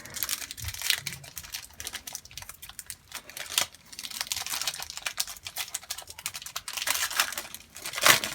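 Foil wrapper of a trading card pack being torn open and crinkled, with irregular crackles and clicks throughout.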